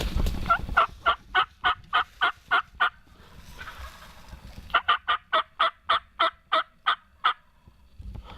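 Two runs of turkey yelps, each about ten short, evenly spaced notes at three to four a second, with a pause of under two seconds between the runs.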